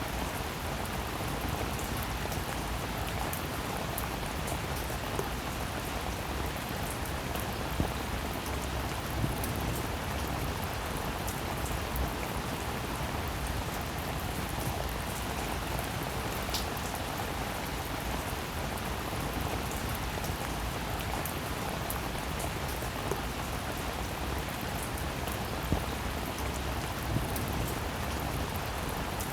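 Steady rain falling, an even hiss of rainfall with scattered individual drops ticking on surfaces and a few louder drip hits.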